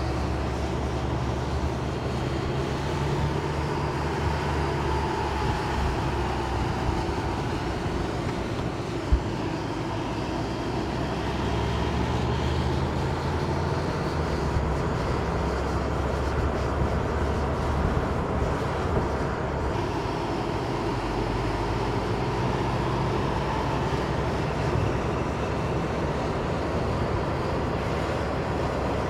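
Renault Super 5 GT Turbo's turbocharged 1.4-litre four-cylinder engine running as the car is driven, its note shifting as the revs change. One short click about nine seconds in.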